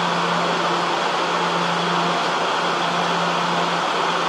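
Steady whirring of a stationary Taroko Express electric train's air-conditioning and auxiliary equipment at the platform, with a steady low hum underneath.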